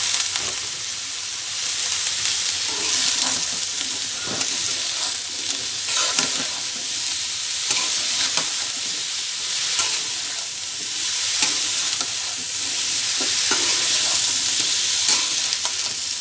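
Cauliflower and papaya pieces sizzling in hot oil in a metal karahi. A metal spatula scrapes and clinks against the pan again and again as they are stirred.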